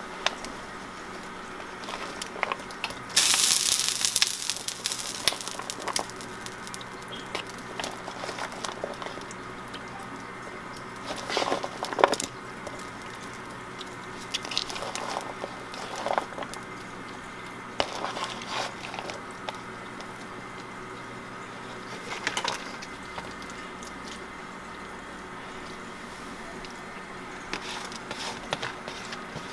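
Sliced bell peppers and onions dropped by hand from a paper plate into gravy in a speckled enamel roasting pan: scattered soft plops and squishes, with a longer noisy rush about three seconds in.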